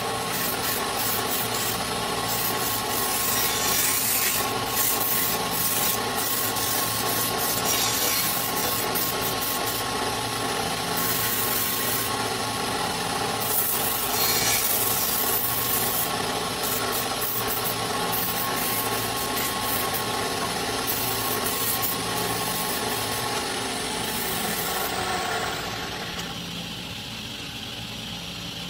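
Wood lathe running with a steady motor hum while sandpaper is pressed against the spinning wooden spindle, a rough rubbing hiss. About 25 seconds in the sanding stops and the lathe runs on alone, quieter.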